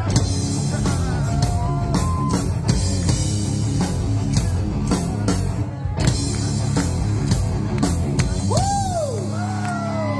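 Live rock band playing an instrumental passage: a steady drum-kit beat with bass and guitar, and a lead line that bends in pitch near the start and again near the end.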